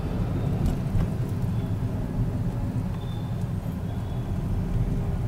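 A car driving through city traffic, heard from inside the cabin as a steady low engine and road rumble.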